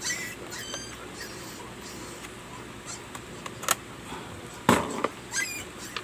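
Plastic housing of a Condura handheld vacuum cleaner being pried apart with a tool: a few sharp clicks and knocks, the loudest about two-thirds of the way in, among short high squeaky chirps.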